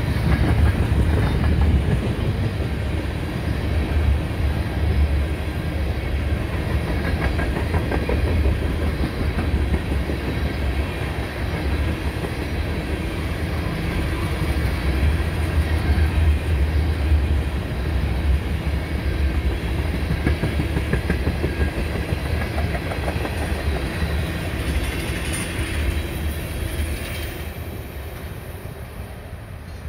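An empty ethanol unit train of tank cars rolling past on the rails with a steady clatter of wheels, dying away over the last few seconds as the train moves off.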